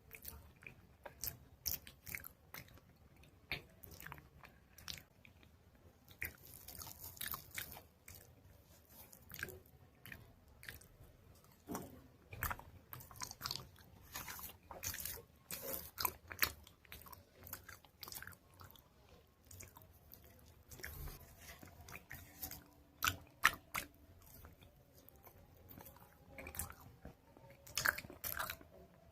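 Close-miked crunching of dried chalk paste being bitten and chewed: many irregular sharp crackles and snaps.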